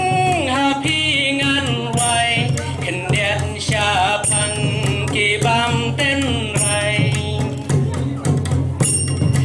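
A man singing a Khasi folk song, accompanying himself on a plucked duitara, a small wooden Khasi lute, with light percussion strikes in the mix.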